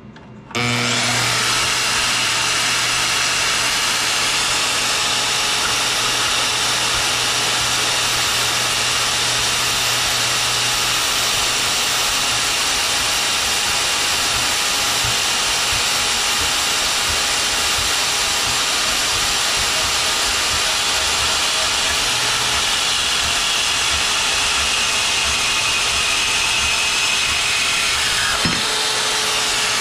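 Metal-cutting bandsaw switched on about half a second in and running steadily, its newly fitted coarser blade cutting eighth-inch steel.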